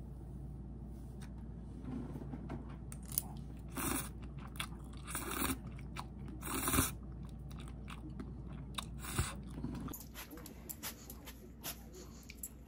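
Close-miked eating sounds: cup noodles slurped and chewed, with irregular crunchy bites. Near the end, a run of short, sharp clicks.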